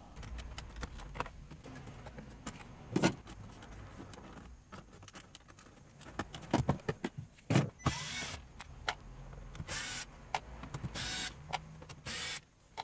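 Several short raspy buzzes of about half a second each, from a cicada that is still alive, mixed with clicks and knocks of parts being handled.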